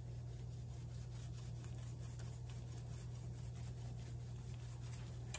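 Ground pepper shaken from a tin over a skillet, a faint scratchy ticking, over a steady low hum.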